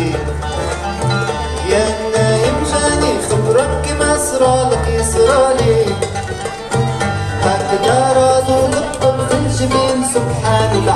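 Small band playing an Arabic song live, with plucked strings and a melody line over a steady low bass pulse.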